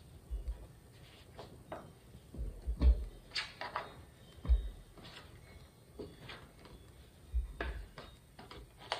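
Scattered soft taps and knocks: diced butter cubes dropped by hand into a plastic food processor bowl of flour, and a flexible cutting mat handled on the countertop, with a few louder thuds among them.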